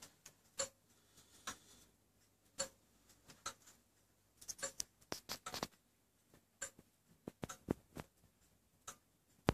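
Antique longcase clock ticking faintly, about once a second: the anchor escapement beating with the seconds pendulum. Several extra clicks come close together in the middle, and a louder knock comes right at the end.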